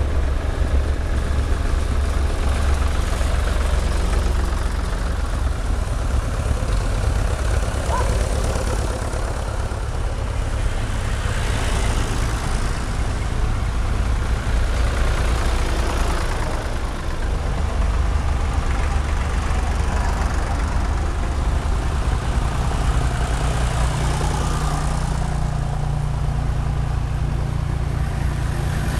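Vintage tractor engines running steadily as tractors drive past one after another; the sound swells as a blue Ford tractor passes close about halfway through, and another tractor's engine note comes in near the end.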